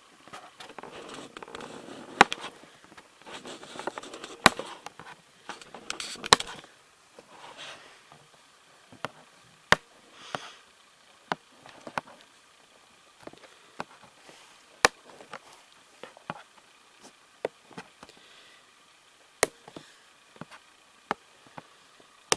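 Fingernails picking and prying at headphone packaging: irregular sharp clicks and snaps, with rustling in the first several seconds and sparser clicks after that.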